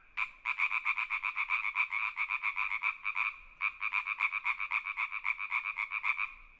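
A frog calling: a fast run of croaks, about eight a second, in two long trills with a short break about halfway through.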